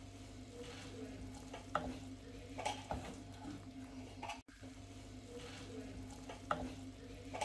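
A spoon stirring and scraping in a cooking pot, with a few light clinks of metal on the pot, over a steady low hum.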